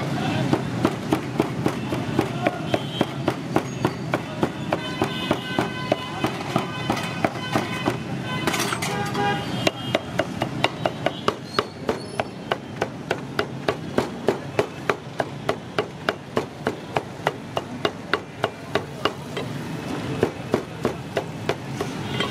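Meat cleaver chopping goat offal on a thick round wooden chopping block: a steady run of chops, about three a second, with a brief pause near the end. Street noise underneath.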